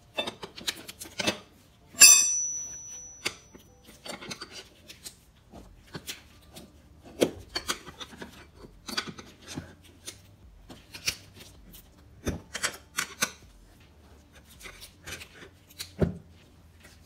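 Tire spoons levering a dirt bike tire's bead over the rim: repeated scraping and rubbing of rubber and metal with scattered knocks. About two seconds in, a loud metallic clank of the spoon on the rim rings briefly.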